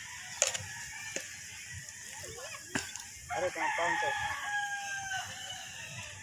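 A rooster crowing about three seconds in: a few broken notes, then one long held note lasting about two seconds. A few sharp clicks come before it.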